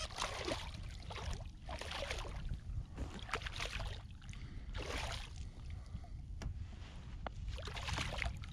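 Shallow water splashing and sloshing in repeated bursts as a small fish is handled and lifted out by hand, over a steady low rumble. Two light, sharp clicks come near the end.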